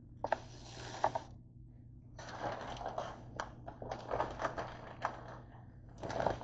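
Crinkling and rustling of packaging in four or five short bursts with sharp clicks among them, as a bag of shredded cheddar is opened and handled.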